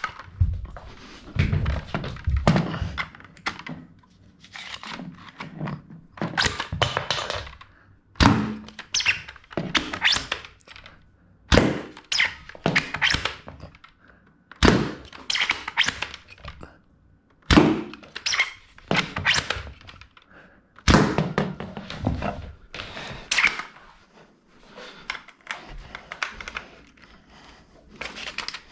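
Toy Kar98k bolt-action foam-dart blaster being fired over and over: a sharp spring-powered thunk every three seconds or so, each followed by a second or two of plastic clicking and rattling.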